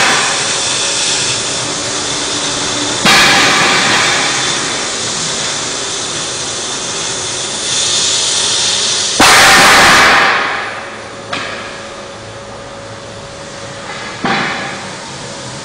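CNC oxy-fuel cutting torch hissing steadily as its gas jet cuts through steel plate. About three and nine seconds in, the hiss suddenly turns louder and then dies away again.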